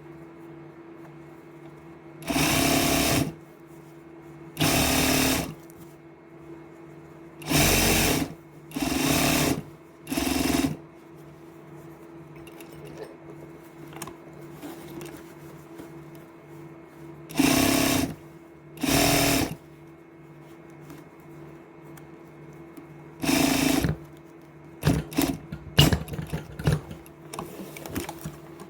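Electric sewing machine stitching a zipper onto a jacket in eight short runs of about a second each, with pauses between. A low steady hum runs underneath, and a quick patter of short clicks comes near the end.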